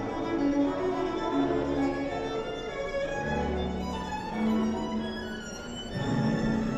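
Background music played by strings, with a violin prominent.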